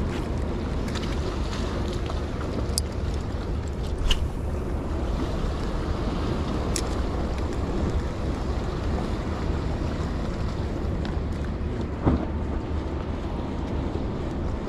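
Boat engine running low and steady at idle, with wind noise on the microphone. A few short sharp clicks are scattered through it.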